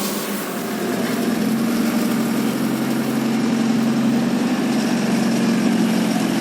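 JCB loader's diesel engine running steadily.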